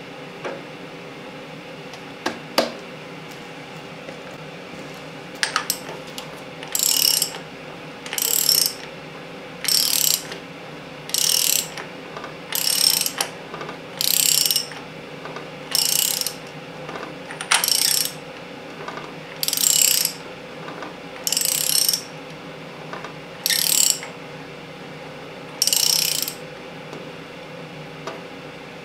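Hand socket ratchet clicking in about a dozen short strokes, roughly one every second and a half, as the centre bolt of a Chrysler 383 big-block's harmonic balancer is run down onto the crankshaft.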